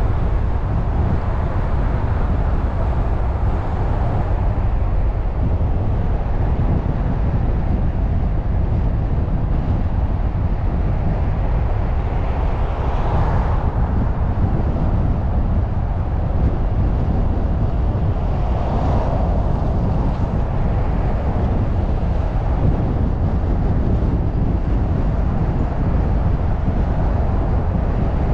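Steady low rumble of a car driving on a city street, engine, tyre and road noise together, with two brief swells of louder noise about halfway through and again about two-thirds of the way through.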